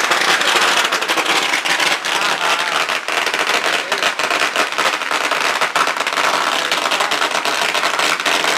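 Firecrackers going off on the ground in a rapid, continuous run of sharp cracks and pops.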